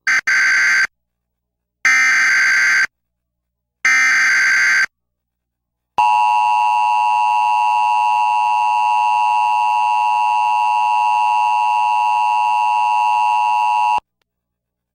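Emergency Alert System tones: three one-second bursts of warbling digital data tones (the SAME header), then a steady harsh two-tone attention signal, about eight seconds long, that cuts off suddenly. The tones mark the start of a broadcast tornado warning.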